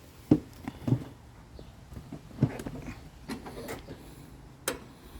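A handful of separate short clicks and knocks, spaced irregularly, with no engine running.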